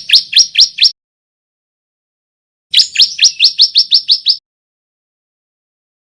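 Male bar-winged prinia (ciblek) singing, a bird still learning its song: two fast runs of sharp rising chirps, the first ending about a second in and the second, about eight notes long, coming a few seconds in.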